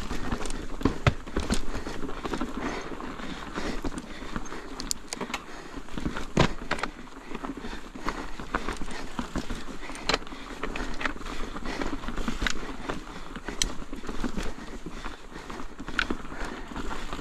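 Ibis Ripmo mountain bike rattling down a chunky trail of loose rocks, with tyres crunching over stones and frequent sharp knocks and clatters as the suspension works hard.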